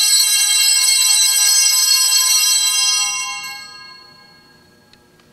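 Altar bells ringing for the elevation of the chalice, a bright cluster of high tones that fades away about three to four seconds in.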